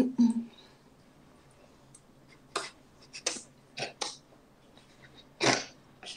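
Hushed whispering: a handful of short breathy hisses and sibilant bursts with pauses between them.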